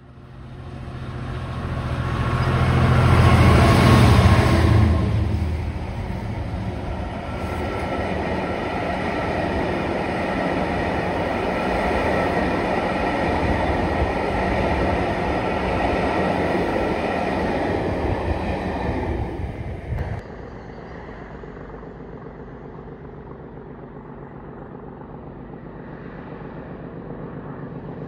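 Class 66 diesel locomotive passing close by under power, loudest about three to five seconds in as the engine goes past. The steady rolling noise of its coaches follows. This cuts off sharply about 20 seconds in and gives way to a quieter, steady engine sound that grows slightly near the end.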